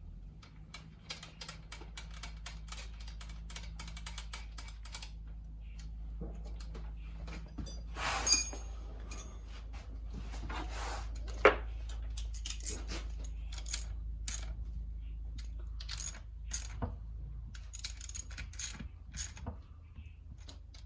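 Small metal clicks and clinks of bolts being set into and run down in a motorcycle engine's cam holder, over a steady low hum. A louder ringing clink comes about eight seconds in and a sharp tap a few seconds later.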